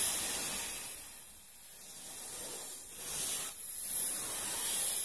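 Cobra hissing: long hisses that fade, then swell again about three seconds in.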